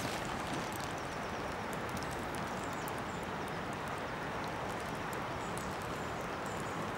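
Steady outdoor lakeside ambience: an even rushing noise with a few faint high ticks.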